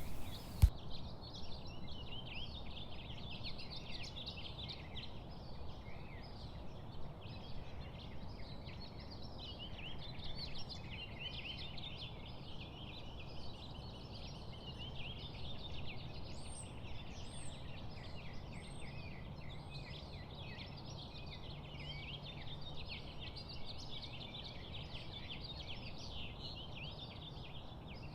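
Many birds chattering together in a steady, dense chorus of quick calls, with a few higher repeated notes partway through. A sharp click sounds just after the start.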